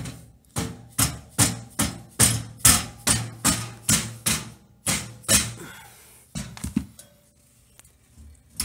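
Hammer striking the steel tabs inside a steel wire dog crate: about a dozen quick metal blows, roughly two or three a second, each with a short ring, then a few lighter knocks near the end. The tabs are being knocked out of the way so the floor grate can be raised.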